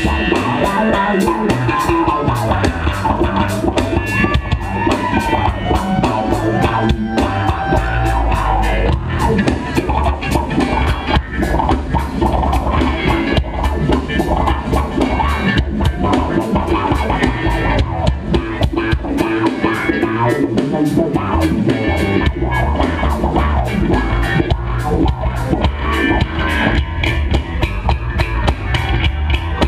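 Live funk band playing a song with drum kit, electric guitar and bass, heard from within the crowd.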